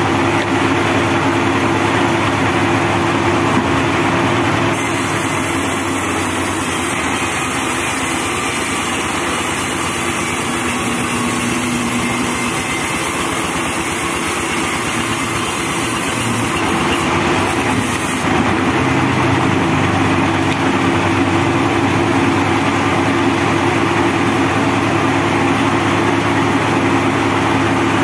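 Homemade diesel-driven band sawmill running steadily while sawing a teak log being pushed through the blade by hand.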